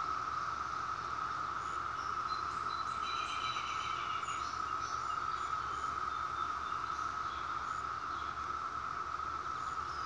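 Chorus of many periodical cicadas: a steady drone held at one pitch, with a few faint higher chirps about three seconds in.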